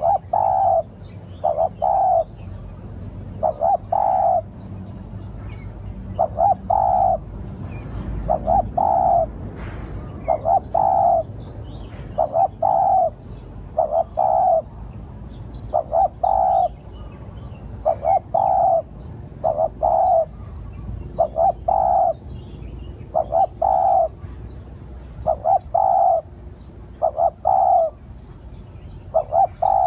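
Spotted dove cooing its repeated call phrase, groups of two or three short low coos about every two seconds, as a lure call. Faint high chirps of a small bird fall between the phrases.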